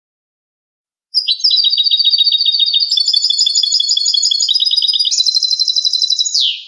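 European goldfinch singing. About a second in, a fast run of repeated high twittering notes begins, shifts to new phrases twice, and ends with a falling note.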